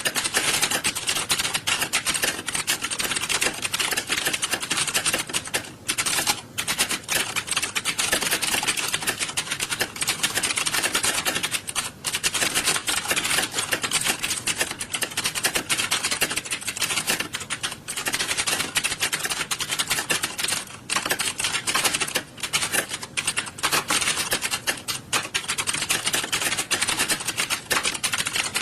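Many computer keyboards being typed on at once, a dense continuous clatter of overlapping key clicks.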